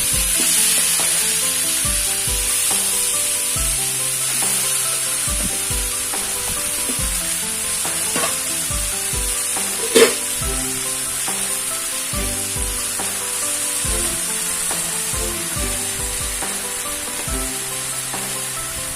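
Chicken pieces sizzling in hot spice paste in a pan as they are stirred, with one sharp knock of the utensil about halfway through. Soft background music with a steady beat plays underneath.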